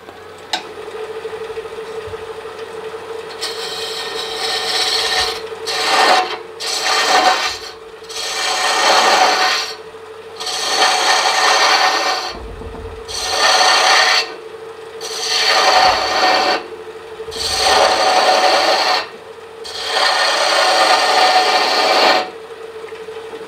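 A Robust wood lathe runs with a steady hum while a hand-held turning tool cuts the spinning wooden handle in about eight passes, each a noisy cut lasting one to two seconds, beginning a few seconds in. The cuts are bringing the end of the handle down smaller than the ball.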